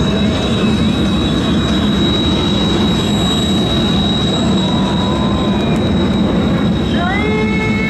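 Jet noise from the Boeing E-767 AWACS's two General Electric CF6-80C2 turbofans as it climbs away in flight. It is a loud, steady rumble with a steady high-pitched whine on top.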